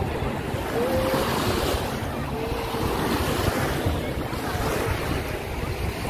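Small waves washing up onto a sandy beach, the surf swelling and easing every couple of seconds, with wind rumbling on the microphone.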